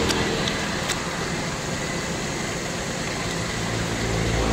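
A motor vehicle's engine running steadily, a low hum that grows louder about four seconds in.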